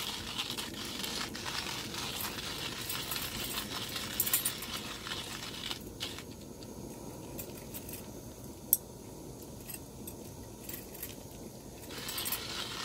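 Light metallic clinks and handling noise of camp cookware and a metal cup on a table, with one sharp click about two-thirds of the way through.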